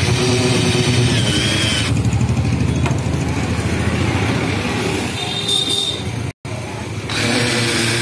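Cordless drill driving screws into a washing machine's plastic base, running in two spells of about two seconds each, one at the start and one about seven seconds in, with a whine in each run. A steady low rumble runs underneath.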